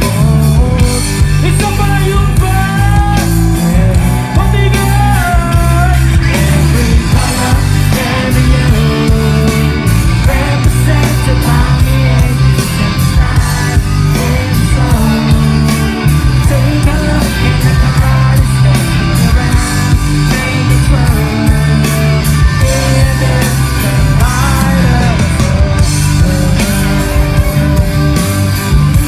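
Rock band playing live through a concert PA, loud and continuous with heavy bass and drums, heard from inside the crowd.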